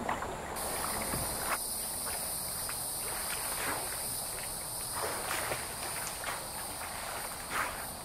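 Steady high-pitched chorus of insects, starting about half a second in, with a few faint soft clicks of water here and there; briefly at the very start, water lapping against a plastic kayak.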